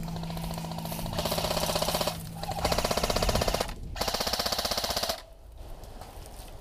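Airsoft electric rifle firing on full auto, three bursts of rapid, evenly spaced shots of about a second each, the last ending about five seconds in.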